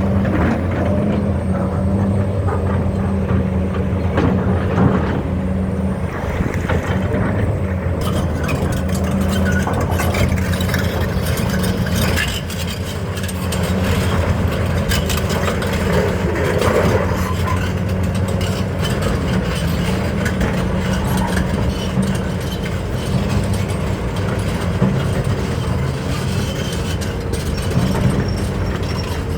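The heavy diesel engine of a Hitachi 870 excavator runs steadily with a deep hum. From about eight seconds in, clattering and knocking join it.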